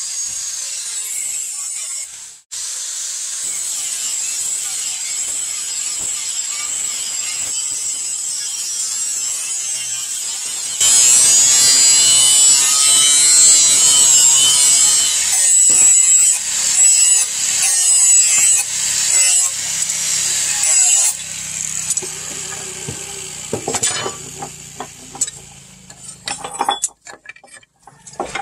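Angle grinder with an abrasive flap disc grinding a steel billhook blade: a steady high-pitched whine, louder and harsher for about ten seconds in the middle, then fading and breaking up into short scrapes near the end.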